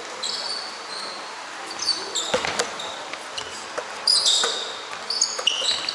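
Basketball game play: sneakers squeaking on the court floor in short high chirps, coming in flurries, with a ball bouncing a few times about two seconds in.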